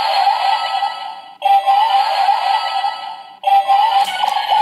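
Bandai DX R/B Gyro toy playing an electronic sound-and-music phrase through its small built-in speaker, the same roughly two-second phrase starting over three times, each opening with a short rising tone. A run of sharp clicks comes near the end.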